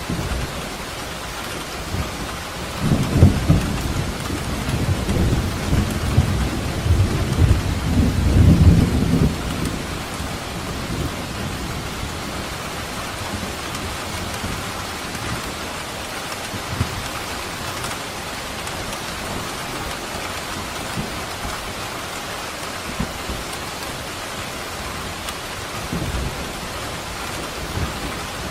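Steady heavy rain falling, with deep rolls of thunder rumbling from about three to nine seconds in and a short rumble near the end.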